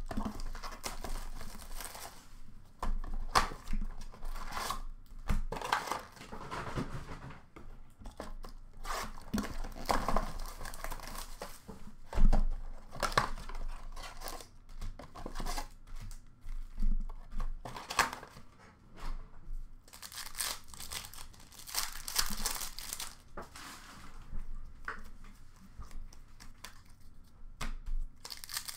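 Hands tearing open a cardboard blaster box and the crinkly wrappers of hockey card packs, with repeated rustles and small clicks as the cards are handled.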